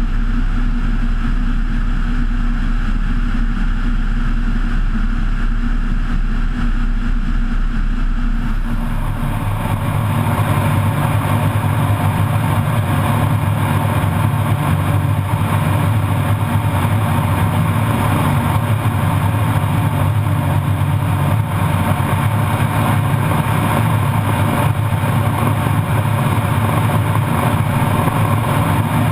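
Kitfox IV floatplane's engine and propeller running steadily. About nine seconds in the sound changes and the engine tone becomes fuller and stronger.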